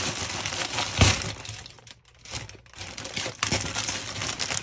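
Plastic packaging crinkling and crackling as it is handled: a white plastic mailer bag and the clear plastic bag around a blanket. A sharp, loud crackle comes about a second in, then a brief lull before the crinkling resumes.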